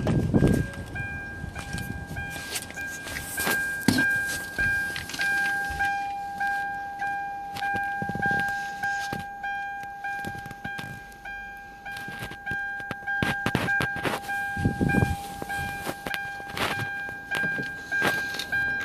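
A steady, high electronic warning tone pulsing about twice a second, typical of a car's chime, with many sharp clicks and knocks through it.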